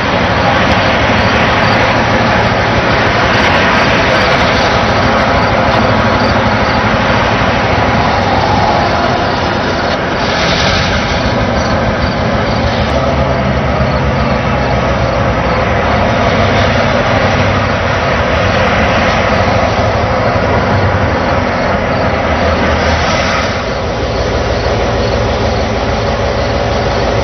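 Railroad work train running, a loud steady mechanical rumble with a diesel engine drone underneath.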